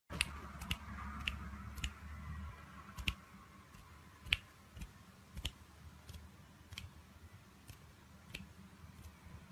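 A series of sharp, irregular clicks, roughly one or two a second and loudest in the first half, over a faint low hum.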